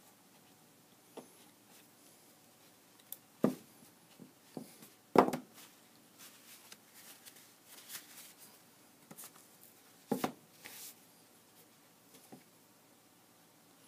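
Hand work on a bookbinding tray: glued bookcloth being turned in over the board edges, with soft rubbing and a few sharp knocks of board on the bench, the loudest about five seconds in and a quick double knock near the end.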